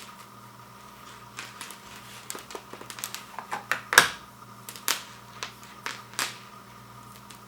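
Hands handling plastic packaging and a light strand: irregular sharp clicks and short crinkles, the loudest about four seconds in, over a faint steady hum.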